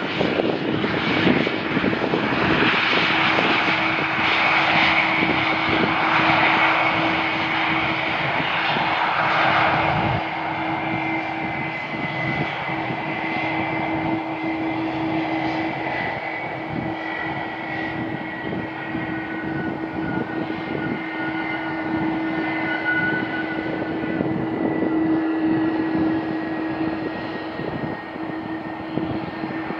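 Jet airliner engines as an aircraft passes on its landing approach. A loud rushing sound fills about the first ten seconds, then eases into a steady hum with a high whine that slowly falls in pitch.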